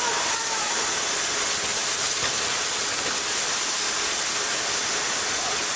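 Steady, loud hissing noise of forge-shop machinery, with no distinct strikes or impacts.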